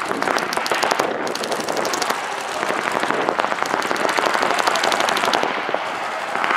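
Paintball guns firing in rapid strings of pops, many shots a second, from several players at once.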